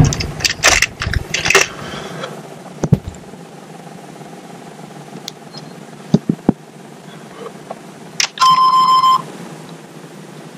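Cranking of a GM 6.5L V8 diesel on a very cold start breaks off in ragged bursts during the first two seconds, without the engine catching. A few clicks follow. At about eight seconds a key click and a single steady electronic warning chime, under a second long, sound as the ignition is switched back on to cycle the glow plugs again.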